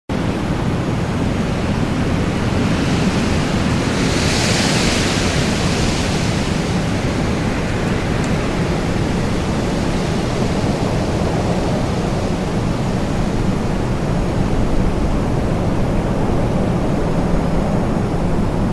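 Strong storm wind blowing, a steady rush with a deep rumble underneath, swelling into a louder, hissier gust about four to six seconds in.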